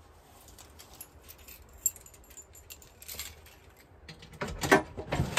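Small metal hand tools clinking and rattling as a toolbox is rummaged through: a few scattered clicks at first, then a busy flurry of clinks near the end.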